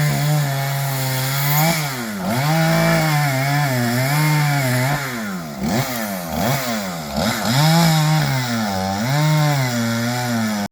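Chainsaw engine running, held at a steady high pitch at first, then dropping and climbing back up several times as the throttle is eased off and opened again.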